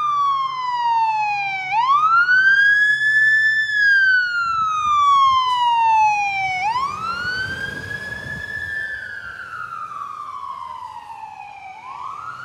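Fire engine's electronic siren wailing: each cycle climbs quickly and then falls slowly, about every five seconds. Midway the diesel engine's low rumble swells as the truck passes, and the sound then fades as it drives away.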